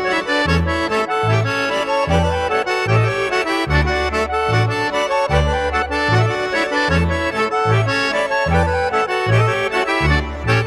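Background folk music led by an accordion, with a bass that alternates between two notes in a steady, bouncing beat.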